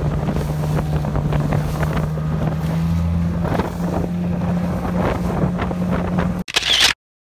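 A small motorboat's engine running steadily at speed, with the hull slapping through the chop and wind buffeting the microphone. The sound cuts off abruptly near the end.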